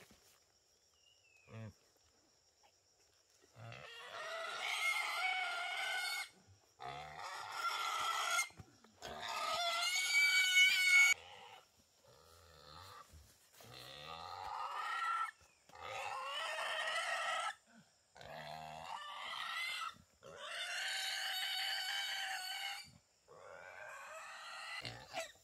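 Wild boar squealing over and over: about eight long, high-pitched squeals of one to two and a half seconds each, with short breaks between them, starting a few seconds in.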